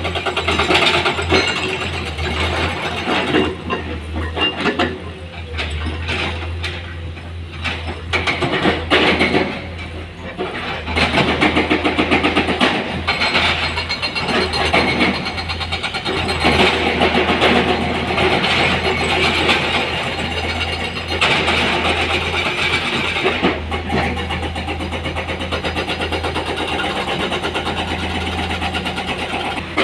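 Heavy diesel engine of an excavator running at work, its level swelling and easing, with a dense rapid rattle over a steady low hum.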